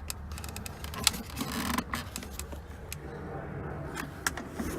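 Hard plastic interior trim being tugged and handled at the center console around the gear shifter: scattered clicks and knocks with a brief scrape, over a steady low hum.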